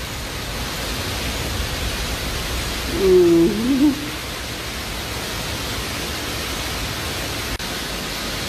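Steady hiss of background noise, with one short, wavering pitched call lasting about a second, roughly three seconds in.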